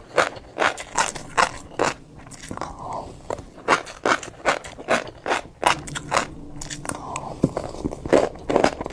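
Close-miked chewing of a mouthful of orange fish roe, the eggs popping and crunching in quick, irregular clicks, several a second.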